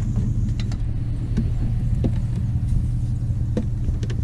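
An engine running steadily with a low, even hum, with a few light clicks over it.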